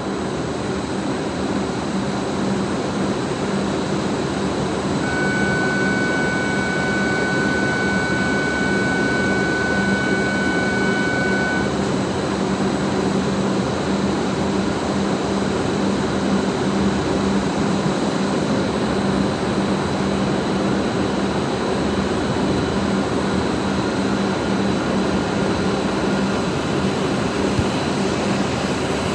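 W7 series Shinkansen train standing at the platform with its doors closed, its equipment giving a steady whirr and hum that grows slightly louder over the first few seconds. A steady high tone sounds for about six seconds, starting about five seconds in.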